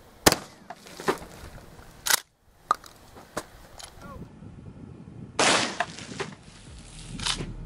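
A 12-gauge shotgun firing a single round of 00 buckshot, one sharp loud crack just after the start, followed by a few smaller sharp knocks over the next few seconds. A burst of noise about a second long comes near the end.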